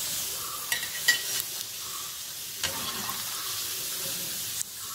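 Hot oil sizzling steadily as rice pakodas deep-fry in a pan. A few light metallic clicks come from a slotted skimmer and spatula knocking against the pan as the fritters are lifted out.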